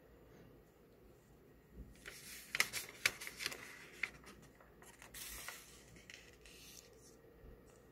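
A page of a glossy magazine turned by hand: paper rustling with several sharp crackles for about two seconds, then a brief swish as the page is laid flat.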